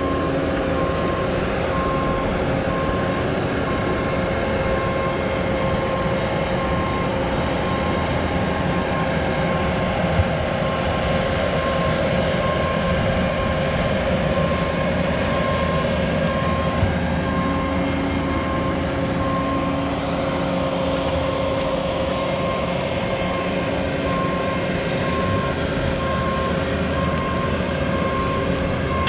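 Heavy machine's engine running steadily while it moves a trailer, with a backup alarm giving a steady repeating beep that fades out about halfway through and returns near the end.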